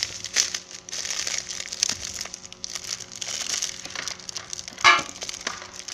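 Crinkling and crackling of a plastic bag of sugar being handled and opened, in irregular bursts, with one louder sharp sound about five seconds in.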